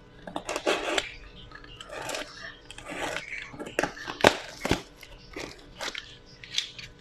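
Plastic bubble wrap inside a cardboard box crinkling and crackling as it is handled, in short irregular spells, with two sharp clicks a little past the middle.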